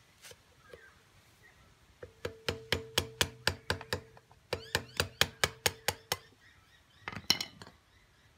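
Repeated metal-on-metal tapping, about four or five ringing strikes a second in two runs, then a louder short clatter near the end: a thin metal bar being tapped to knock out the rubber seal cap on top of a Tuff Torq hydrostatic transaxle.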